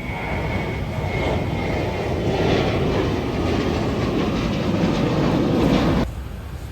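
Jet airliner engines, a broad noise building steadily louder over several seconds, with a faint steady whine early on. It cuts off abruptly about six seconds in.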